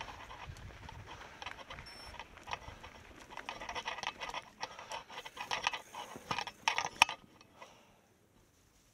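Mountain bike clattering and rattling over a rough trail, with many irregular knocks from the tyres, chain and frame. The loudest sharp knock comes about seven seconds in, and the sound then drops away almost to silence as the bike comes to a stop.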